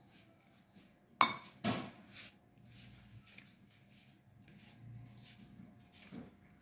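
Hands rubbing a dry flour mixture in a steel bowl, a soft rustle, with a sharp clink against the bowl about a second in, a smaller knock just after, and a few faint knocks later.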